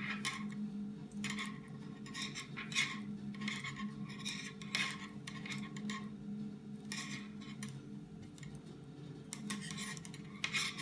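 Metal double-pointed knitting needles clicking and scraping against each other as knit stitches are worked in the round, with a short click roughly every second.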